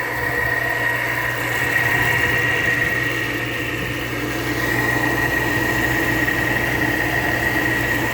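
Window air conditioner running: a steady low compressor hum under fan noise, with a steady high whine.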